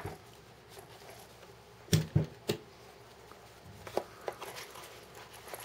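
Handling noise on a cloth-covered table: a few short dull knocks, three close together about two seconds in and two lighter ones around four seconds, as a small cardboard ammunition box is set down near the pistol.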